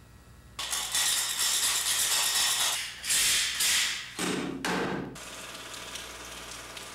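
A hand tool scraping at a wall, in harsh rasping strokes: a long one, a shorter one, then two quick ones, followed by a steady low hiss.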